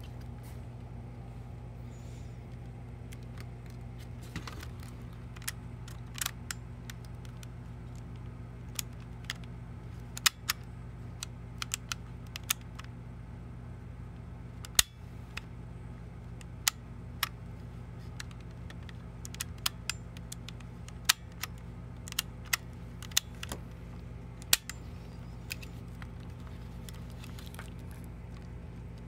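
Irregular sharp clicks and taps of a small plastic cassette recorder's casing, mechanism and circuit board being handled during reassembly, over a steady low hum.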